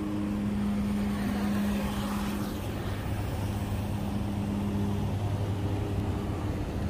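Outdoor street ambience: a steady low mechanical hum under an even wash of traffic noise, which swells a little about one to two seconds in.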